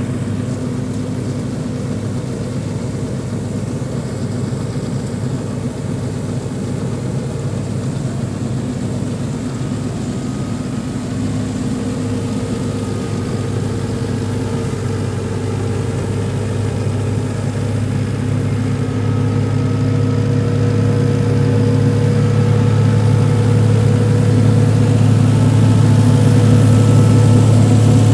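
Massey Ferguson 385 tractor's diesel engine running steadily at about 1800 rpm while driving a straw chopper, growing gradually louder toward the end.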